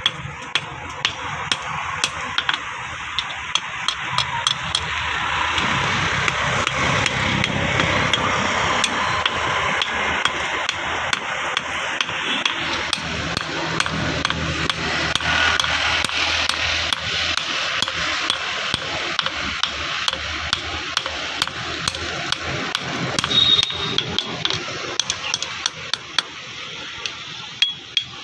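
A blacksmith's hammer striking metal on an anvil again and again at an even pace, a few blows a second, over a steady rushing noise.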